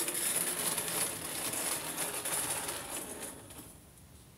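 Hornby OO-gauge Peckett W4 model locomotive running with a brake van in tow: a small motor's whirr and wheels clattering over the track, fading away about three and a half seconds in as the train moves off.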